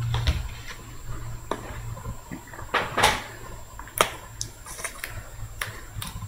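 Trading cards being handled on a wooden table: scattered light clicks and short crinkly rustles, the loudest rustle about three seconds in, over a faint low hum.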